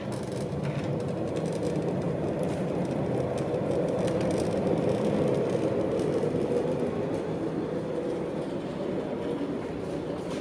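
Steady low rumble and hum of a large ship's machinery and ventilation heard inside a passageway, even throughout, swelling slightly in the middle.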